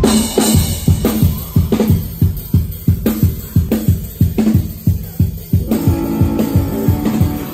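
Live rock band: a drum kit plays a steady beat of kick, snare and cymbals. About six seconds in, sustained instrument notes join the drums.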